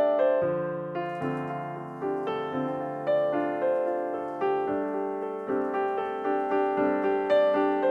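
Background piano music: a gentle melody of single struck notes, each one fading after it is played.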